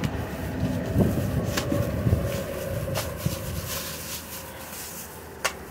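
Plastic bags rustling and items knocking as hands rummage through a cardboard box, with a few sharp clicks, the sharpest near the end, over a low rumble.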